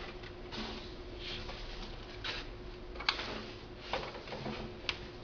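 Small handling noises of a door lock and its screws being fitted by hand: soft rustling with a few sharp clicks, the clearest about three seconds in and near the end.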